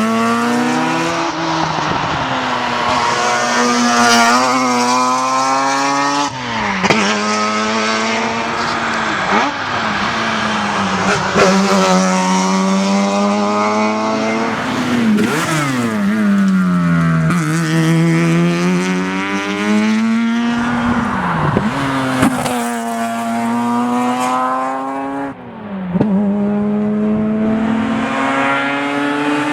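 Mazda RX7's twin-rotor rotary engine at full race effort, its pitch climbing hard and then dropping back every few seconds through gear changes and braking for corners.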